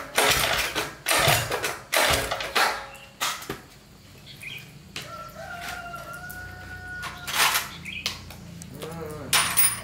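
A rooster crowing: one long call about two seconds long, starting about five seconds in. Before it come four or five short noisy strokes about half a second apart, the loudest sounds here.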